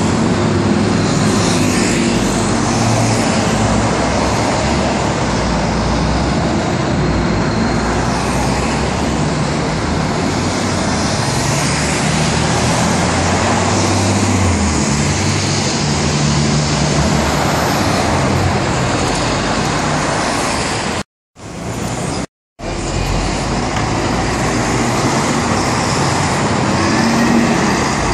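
City street traffic: buses and cars driving past, a low engine drone that rises and falls as vehicles pass. The sound drops out briefly twice about three-quarters of the way through.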